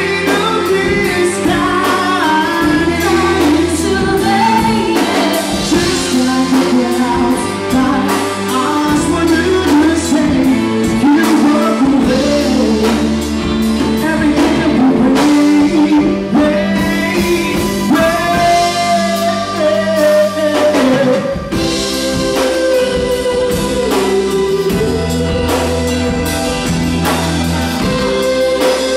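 Live band playing a pop song: a male lead singer on a handheld microphone over drum kit, bass and electric guitar.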